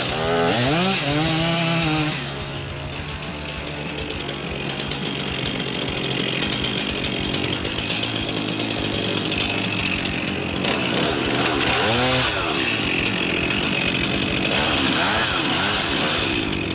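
Chainsaw running and cutting wood, its engine pitch swinging up and down as the throttle is worked, near the start and again later on. It drops back quieter after about two seconds, then builds again.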